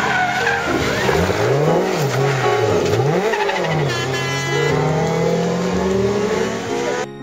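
Rally car engine revved hard up and down about three times in quick succession while the car slides through a hairpin, then holding a longer steady note as it pulls away.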